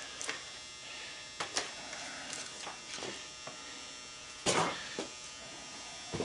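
Plastic buckets being handled and set on a digital bench scale: a few light knocks and one louder short clatter about four and a half seconds in, over a steady electric hum.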